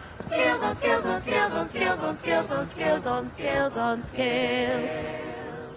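Small mixed choir of young voices singing a cappella in short, rhythmic syllables, then holding a sustained chord with vibrato from about four seconds in that fades away near the end.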